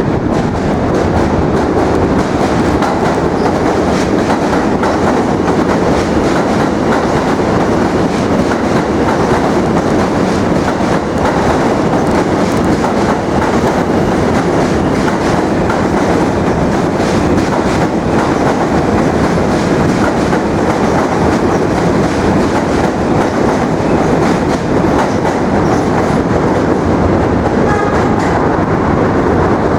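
Train running on rails close by, a loud steady rumble with rapid clattering of wheels over the track.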